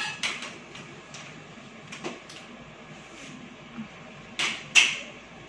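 Light metal clicks and knocks of an aluminium folding walker being lifted and moved aside, with two louder knocks close together about four and a half seconds in.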